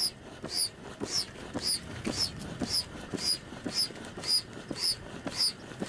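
Foot-operated bellows pump being worked in a steady rhythm, about two strokes a second, each stroke giving a short high-pitched rush of air as it inflates an inflatable kayak.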